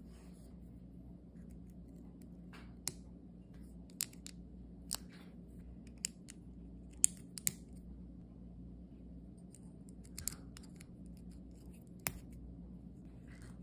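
Plastic Lego bricks and plates handled and pressed together by hand: about eight sharp clicks at irregular intervals, the loudest about seven seconds in, with soft rustling of the pieces between them.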